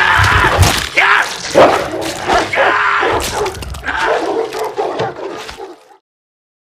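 Hounds growling as they maul a man, biting and tearing at him. The sound cuts off suddenly about six seconds in.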